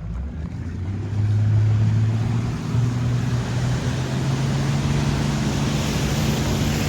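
Motorboat engine speeding up and then running steadily, getting louder about a second in, with a rushing noise of water and wind that grows as the boat gathers speed.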